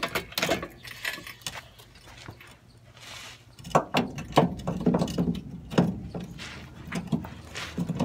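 Scattered clunks and knocks of metal and rubber as the old rubber body mount bushing is worked loose by hand from its frame bracket under the truck cab. A few knocks come first, then a lull, then denser clunking over the second half.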